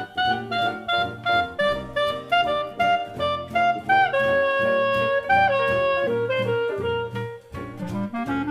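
Background music: an upbeat jazzy tune whose lead melody plays quick short notes, then moves to longer held notes about four seconds in.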